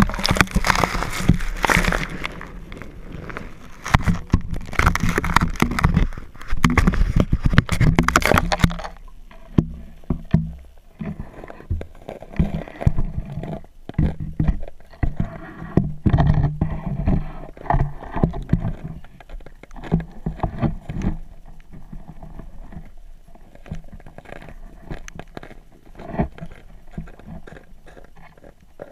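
Handling noise of a pole-mounted camera being pushed down through a hole in the ice: loud scraping and splashing for about the first nine seconds, then, once it is underwater, muffled knocks and rumbles from the pole.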